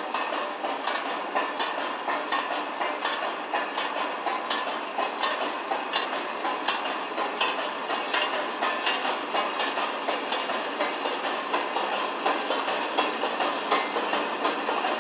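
Bucket conveyor on test run, empty steel buckets on a roller chain running past the sprockets with a continuous rhythmic clacking and rattle over a steady mechanical running noise.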